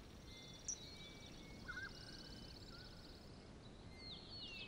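Faint outdoor ambience with birds chirping: a rapid high trill in the first few seconds and a run of short chirps near the end, over a low steady hiss.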